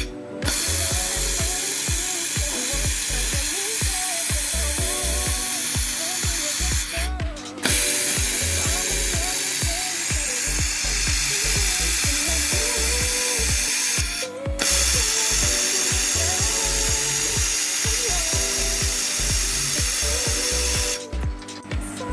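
Fiber laser welder running along a metal seam, a steady loud hiss in three long passes. It breaks off briefly about seven seconds in and again about fourteen seconds in, then stops near the end. Background music plays underneath.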